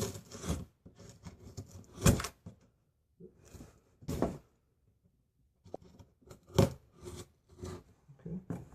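Packaging and boxes being handled: a few sharp knocks and thuds, the loudest about two seconds in and again past six seconds, with light rustling and clicks in between.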